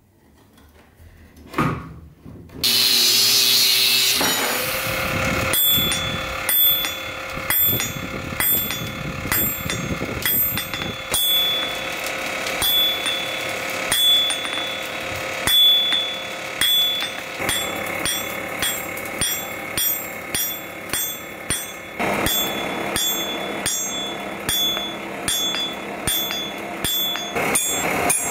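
Hand hammer striking red-hot steel from an old file on an anvil in a steady rhythm, each blow leaving a bright metallic ring. A loud rushing noise comes just before the hammering starts.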